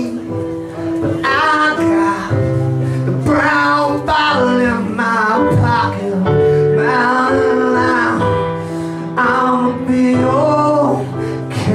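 Live music: voices singing over sustained instrumental chords that change every second or so.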